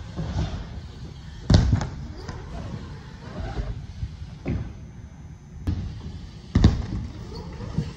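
Several sharp thuds and knocks of BMX bikes hitting the wooden ramps, the loudest about a second and a half in and another near the end, over a low rumble of tyres rolling on the ramp surface.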